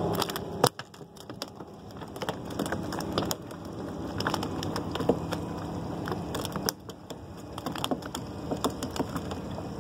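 Irregular close-up clicks, taps and crackles of hands handling fishing gear on a wooden dock, with one sharp click under a second in, over a steady low background noise.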